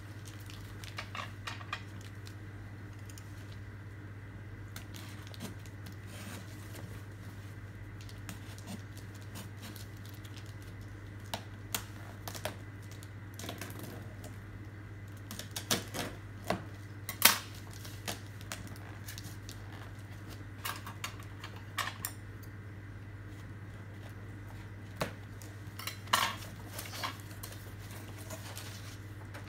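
Cardboard shipping box being opened by hand: scattered taps, scrapes and rustles of cardboard and packing, with a box cutter slitting the tape, over a steady low hum.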